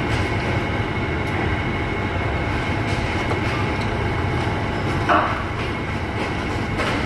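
Steady low rumble of a moving vehicle, with a brief louder sound about five seconds in.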